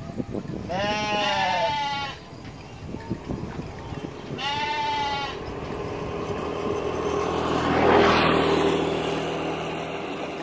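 Sheep bleating twice, a long wavering bleat about a second in and a shorter one about four and a half seconds in. In the second half a passing road vehicle is heard, its noise swelling to a peak about eight seconds in and then fading.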